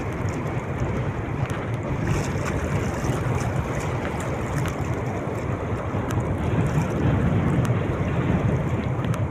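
Wind buffeting the microphone over the steady rush of sea water.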